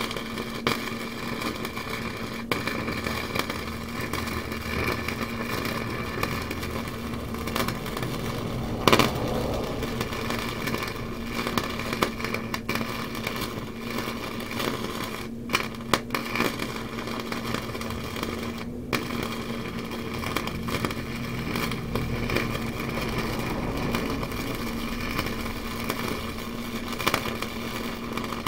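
Arc welding on mobility-scooter bumper pieces: a steady crackling sizzle over a low hum, with a sharper pop about nine seconds in and a few brief breaks in the arc.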